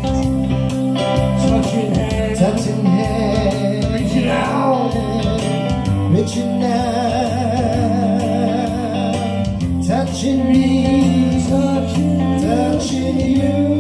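Live band playing a slow song: a male voice singing long, wavering held notes over guitar and a steady beat.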